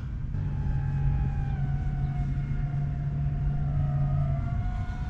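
A motor running: a steady low hum under a whine that slowly falls in pitch, the hum dropping away near the end.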